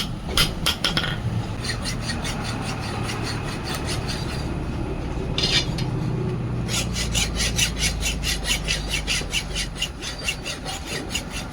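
Metal being worked with a blacksmith's hand tool in quick, even strokes, about four a second over the second half, over a low steady hum.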